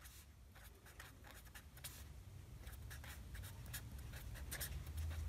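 Felt-tip pen strokes on paper as a word is written: a run of short, faint scratches and taps that grow a little louder toward the end.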